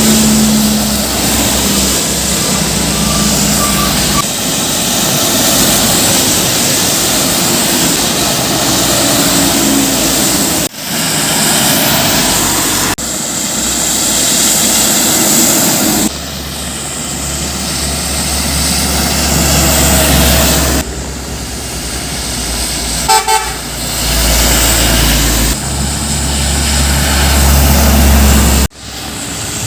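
Heavy trucks and buses passing close on a road: loud engine and tyre noise that changes abruptly several times. A multi-tone horn sounds over the first few seconds, and there is a short quick run of horn toots a little over three-quarters of the way through.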